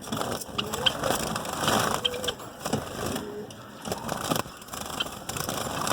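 Zebra finches giving repeated short calls and chirps, mixed with frequent small clicks and rustles.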